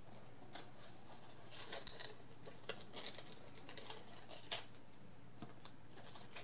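Goodie bag being opened by hand: faint, irregular crinkles and small clicks of packaging being handled, over a low steady hum.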